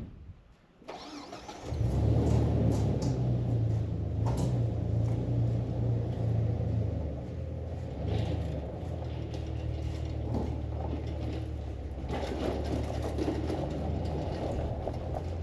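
A vehicle engine is cranked and catches a little under two seconds in, then runs steadily at idle.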